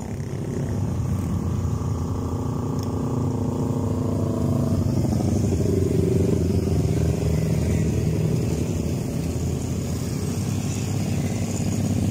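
A group of small-displacement motorcycles (a sport bike, underbones and scooters) riding past one after another, several engines running at once and overlapping. The engine noise grows a little louder about halfway through as the bunch draws level.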